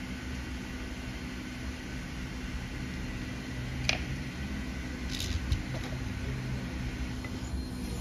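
A small fan running with a steady whir and low hum, with a light click about four seconds in and two more just after five seconds; the hum cuts out near the end.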